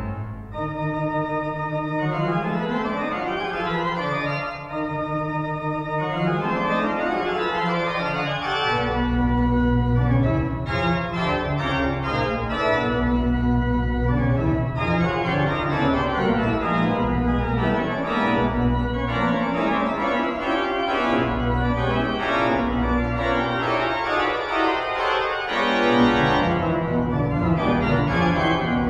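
Pipe organ playing a fast toccata: rhythmic chords with rising runs on the manuals. Deep pedal notes come in about a third of the way through in short repeated strokes and drop out a few seconds before the end.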